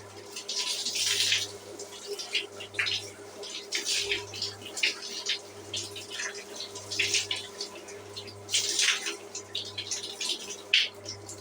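Shower water splashing in irregular, uneven bursts of hiss, over a steady low hum.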